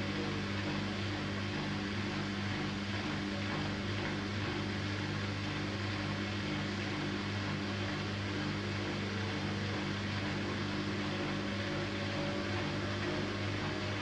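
Siemens Siwamat IQ 716 front-loading washing machine running with its drum turning: a steady motor hum with several low tones over an even whir.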